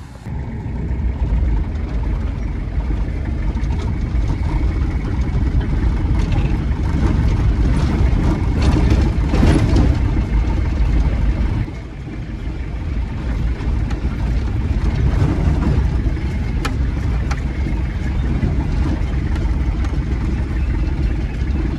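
Toyota Hilux pickup driving on a rough dirt track, heard from inside the cabin: a steady low rumble of engine and tyres, with a few small knocks and rattles from the bumps.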